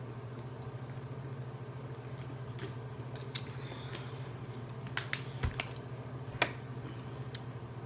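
Drinking water from a plastic bottle, then a few light clicks and taps as the bottle is put down and a fork is picked up, over a steady low hum.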